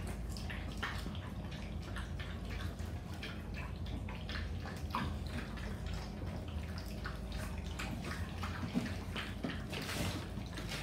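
American bully puppies eating from metal bowls: scattered small wet clicks and clinks of chewing and muzzles against the bowls, over a low steady hum.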